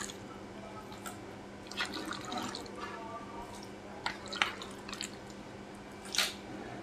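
Chunks of raw beef dropped by hand into wet spice paste in a wok, making a few irregular wet plops and slaps. A faint steady low hum runs underneath.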